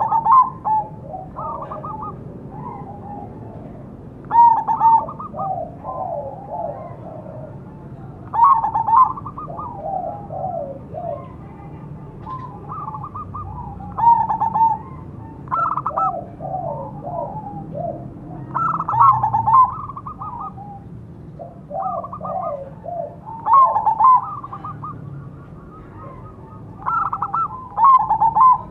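Zebra dove (perkutut) singing its coo song: a loud, quick, rhythmic run of notes repeated about every three to four seconds, some eight phrases in all.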